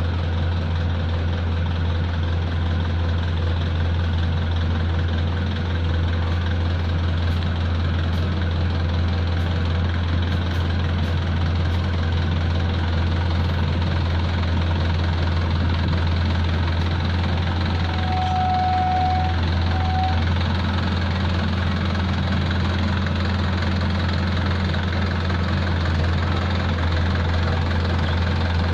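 Heavy diesel engine of road-paving machinery running steadily at a constant speed: a low, unchanging drone.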